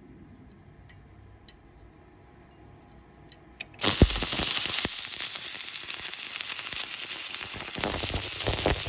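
Stick (SMAW) welding arc on stainless steel: after a few faint clicks, the arc strikes about four seconds in and burns with a steady, loud crackling hiss.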